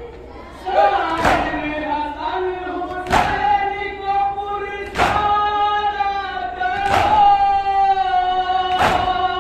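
Men's voices chanting a Shia noha together, with a sharp stroke of synchronized chest-beating (matam) about every two seconds, five in all. The chanting comes in just under a second in.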